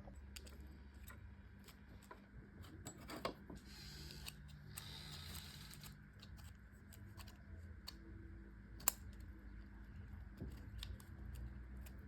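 Faint clicking and scraping of thin steel E and I transformer laminations being handled and slid into place, with a brief scraping stretch and one sharper click near the end.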